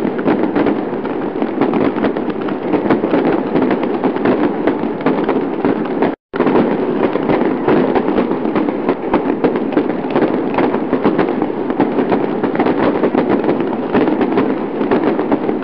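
Fireworks sound effect: dense, continuous crackling and popping of many fireworks going off at once, broken by a brief cut to silence about six seconds in.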